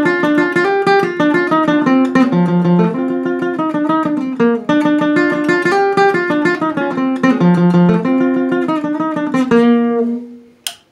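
Acoustic guitar picking a fast lead melody in Colombian parranda style (punteo), with bass notes moving under it. It ends on a held note about ten seconds in and fades out, followed by a sharp click.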